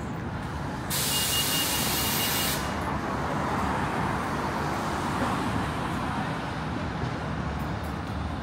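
City street traffic rumbling steadily, with a bus or truck's air brakes letting out a loud hiss about a second in that stops abruptly under two seconds later.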